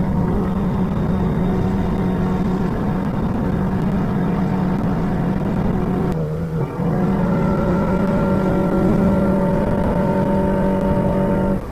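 A small cabin boat's engine running steadily under way, with rushing wind and water noise. Just past halfway the engine note dips briefly, then settles back to a steady run.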